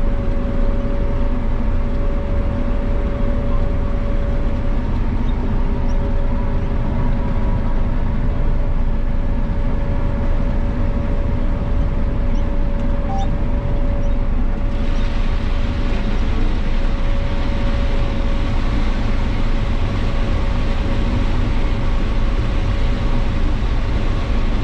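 Combine harvester running while picking corn: a steady deep drone of engine and threshing machinery with a steady whine over it. About fifteen seconds in, a brighter hiss joins and stays.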